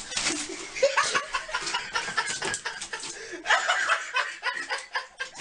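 Human laughter in short, repeated bursts.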